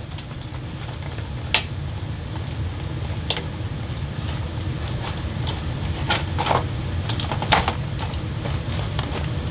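Insulated foil flexible duct being handled and fitted onto a bathroom exhaust fan's duct collar, rustling and crinkling with scattered short sharp crackles, over a steady low hum.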